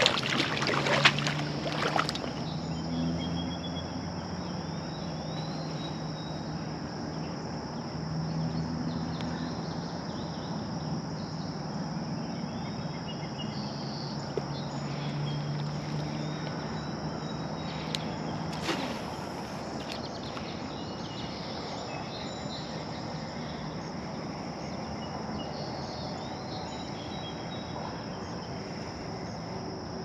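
Crickets and other insects keep up a steady high-pitched chorus. Under it a low hum runs for the first two-thirds, and a few sharp clicks come near the start.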